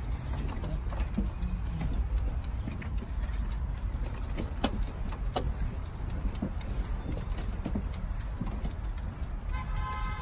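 Steady low outdoor rumble with a few sharp light ticks in the middle. Background music comes in near the end.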